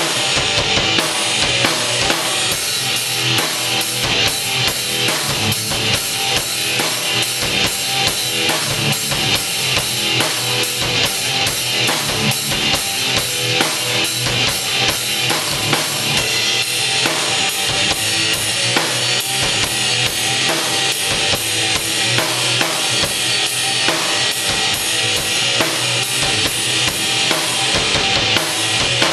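Mapex drum kit played loud and fast in a steady rock beat, bass drum and snare hits coming thick and even, with the rest of the band playing along.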